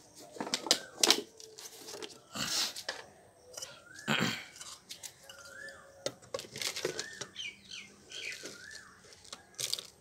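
Metal spoon scraping, scooping and clicking against a plastic jar of dry, gritty fertilizer, with rustling handling noise and two louder rustling bursts about two and a half and four seconds in.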